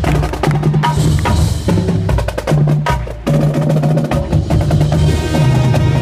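High school marching band playing its field show: sustained low brass chords under rapid, sharp percussion hits from the drum line and front ensemble, briefly breaking off twice in the middle.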